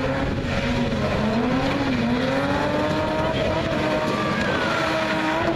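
BMW E30 engine held high in the revs while the car spins doughnuts, its note wavering up and down and then climbing and holding steady near the end, over the hiss and squeal of the rear tyres spinning against the surface.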